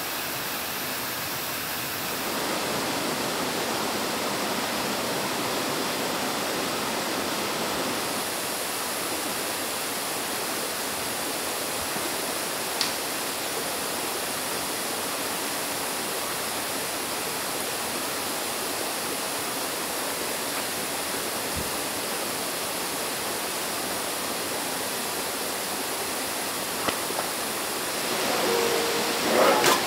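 Steady rushing of flowing stream water, an even wash of noise with no change in strength. A single small click about thirteen seconds in, and a few light clinks near the end.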